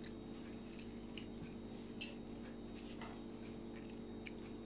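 Faint, irregular small clicks and taps of a knife working on a cutting board as smelt are cleaned, over a steady low electrical hum.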